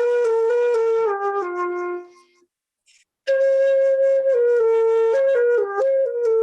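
A slow solo melody on a single flute-like wind instrument. A phrase of held and stepping notes falls in pitch and fades out about two seconds in, and after a short pause a new phrase begins.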